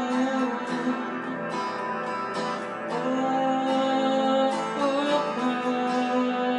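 Acoustic guitar music with long held melody notes over the strumming, in an instrumental passage of a live song.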